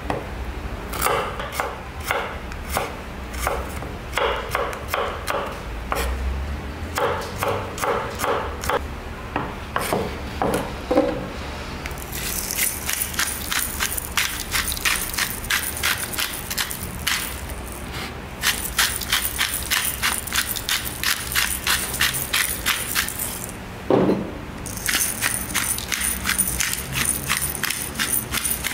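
Chef's knife slicing garlic cloves on a wooden cutting board in separate knocks, then, about twelve seconds in, a stainless steel pepper mill grinding black pepper in rapid, dense clicking runs with two short pauses.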